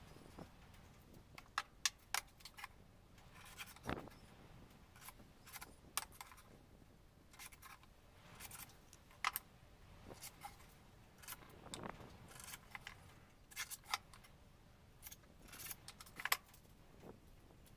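MDF pieces of a small speaker box being handled and fitted by hand on a workbench: irregular light knocks, clicks and scrapes of wood against wood, with a couple of duller thumps as parts are set down.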